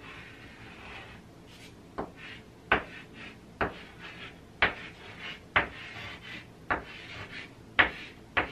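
Chalk writing on a chalkboard: a sharp tap about once a second as each stroke begins, with faint scratching between the taps.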